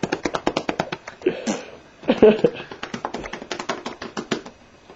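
Hands drumming fast on a cat's belly: a quick, even run of soft slaps, several a second, that stops near the end.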